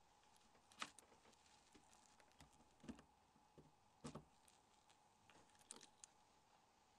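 Near silence broken by a few faint, short clicks: one a little under a second in, others around three and four seconds in, and a pair near six seconds.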